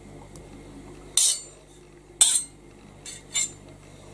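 Kitchen knife blade clinking against a metal spoon as the chopped garlic and ginger is scraped off the spoon: three short, sharp clinks about a second apart.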